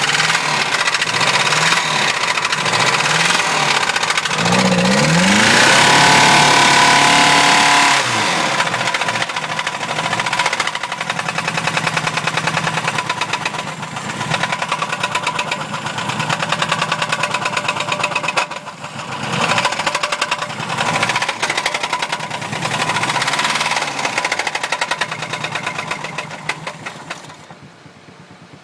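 Mazda B2000's four-cylinder engine running with a heavy, rapid knock from a failed connecting-rod bearing, revved hard a few seconds in and revved again several times afterwards. The sound drops away sharply near the end.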